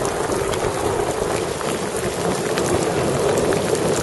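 Hail and rain pelting down steadily on rock and the camera, a dense patter of many small hits.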